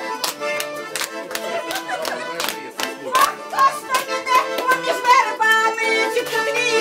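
Accordion playing a lively folk dance tune, with rhythmic hand clapping in time. A woman's voice joins in singing about five seconds in.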